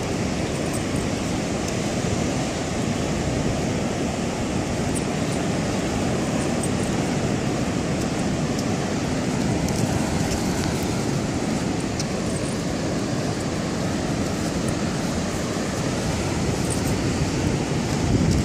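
Wind blowing on the microphone over ocean surf breaking in the distance: a steady, even rush of noise.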